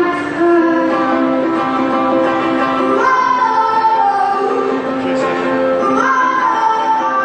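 A girl singing into a microphone with long held notes, to her own strummed ukulele, amplified through the arena's sound system.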